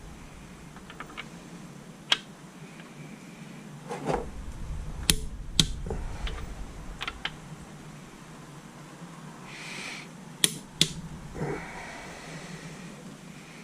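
Scattered sharp clicks and knocks of hand tools and metal engine parts being handled during engine assembly, a few spaced seconds apart over a faint hiss.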